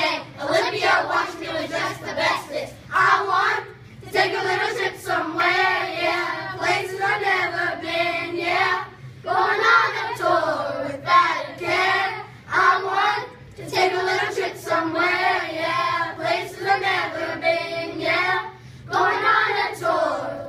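A class of children singing and rapping together in unison, their song listing the U.S. state capitals, in phrases broken by short pauses; the singing stops near the end.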